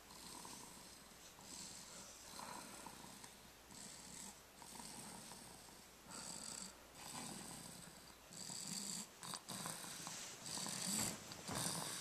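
Sleeping baby snoring softly, a rasping breath every one and a half to two seconds, growing a little louder toward the end, with a few soft clicks about three quarters of the way in.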